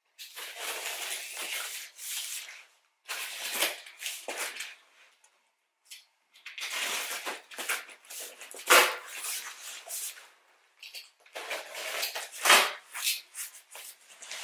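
Utility knife slicing packing tape on a cardboard carton and the cardboard flaps being pulled open: bursts of scratchy tearing and rustling, with a couple of sharper knocks.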